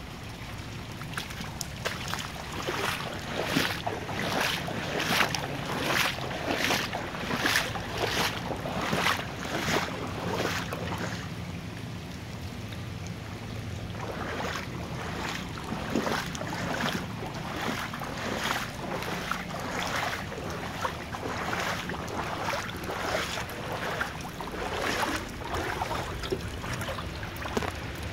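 Footsteps wading through shallow floodwater, a splash with each step at about two a second, pausing for a few seconds partway through before going on.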